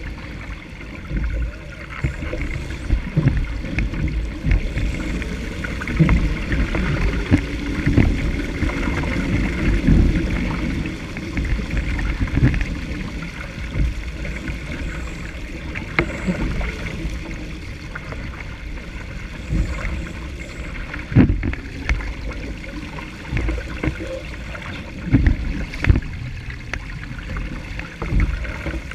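Water rushing and splashing along the hull of a Laser sailing dinghy under way in chop, with wind buffeting the microphone. Occasional sharp thumps, the strongest about two-thirds of the way in and again near the end.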